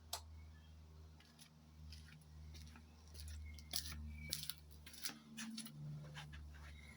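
Freshly rebuilt Yamaha two-stroke engine idling with a steady low hum, and irregular sharp clicks and ticks over it. The owner calls the top end noisy.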